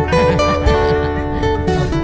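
Background music with strummed guitar and held notes.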